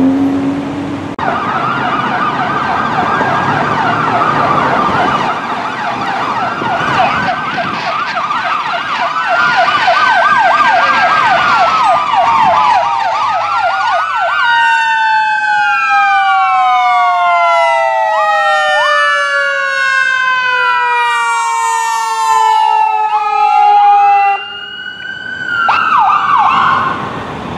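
Emergency vehicle sirens. First a fast warbling yelp from the fire engine, then from about halfway the ambulance's electronic siren joins in with rising and falling wail sweeps, several siren tones overlapping, with a brief drop in loudness near the end.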